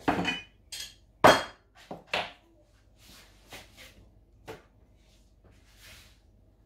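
Kitchen bowls and utensils being moved and set down on a stone countertop: a quick series of knocks and clinks, the loudest about a second in, then a few softer taps.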